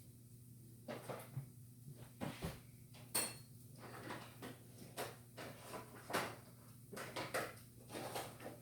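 Metal utensils and cookware clinking and knocking together: irregular kitchen clatter, with one sharper ringing strike about three seconds in, over a steady low hum.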